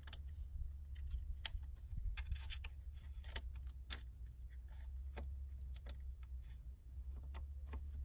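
Faint, irregular small metallic clicks and scrapes of a screwdriver working screws on an engine's wiring terminal strip, over a steady low rumble.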